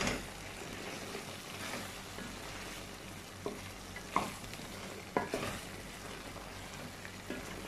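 Wooden spatula stirring thick potato curry in a stainless steel pan, working ground spice powders through it, over a soft steady sizzle from the low flame. A few sharper scrapes or taps of the spatula against the pan stand out, around four and five seconds in.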